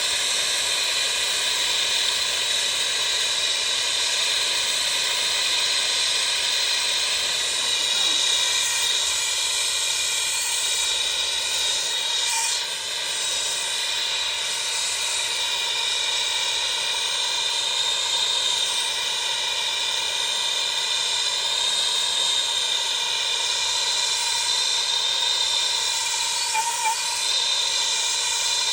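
Steady, loud hissing that holds an even level, with a faint ringing edge, heard during a water heater relief-valve test while the pressure or temperature is climbing and the valve has not yet blown off.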